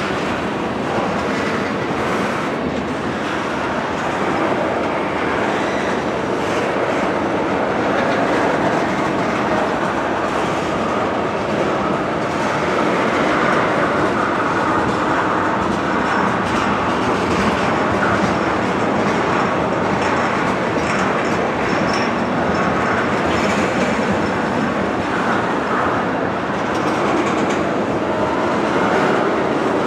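Loaded railroad tank cars of a freight train rolling past: a steady rumble of steel wheels on rail, with clicking as the wheels cross rail joints.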